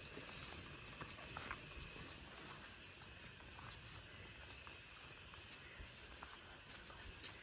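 Faint night-time insect chorus: crickets chirring steadily, with a few faint ticks.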